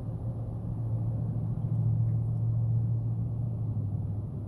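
A steady low hum that swells a little toward the middle.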